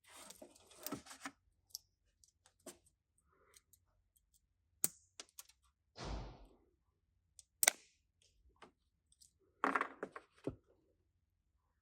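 Small irregular clicks, taps and rattles of a plastic tail-light connector and metal terminal-removal tools being handled, with a couple of longer rustling sounds about halfway through and near the end.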